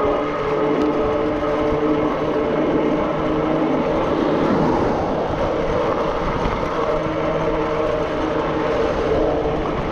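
Zugo electric bike under way: its motor gives a steady hum made of several tones, over tyre noise, with wind buffeting the microphone in a low rumble.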